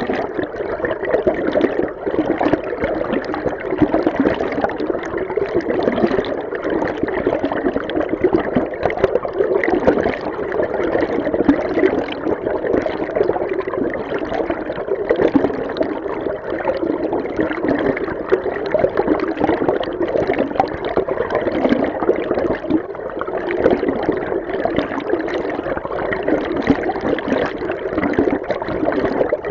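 Stream water rushing and gurgling as heard underwater: a steady, dense, muffled rush, strongest in the lower-middle range, with constant small fluctuations.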